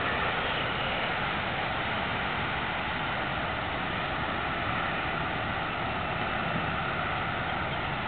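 Steady, even rushing noise with no calls or distinct sounds standing out.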